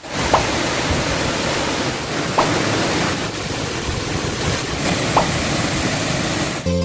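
Steady roar of a waterfall's rushing water, with three brief rising chirps a couple of seconds apart.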